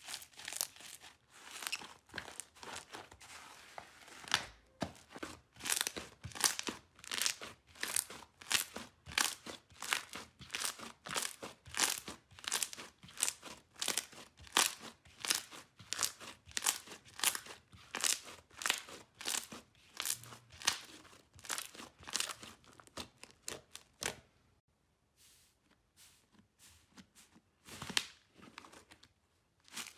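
Hands squeezing, stretching and kneading airy, bubble-filled slime, giving off rapid sticky crackles and pops as the trapped air pockets burst. The crackling eases for a few seconds near the end, then picks up again.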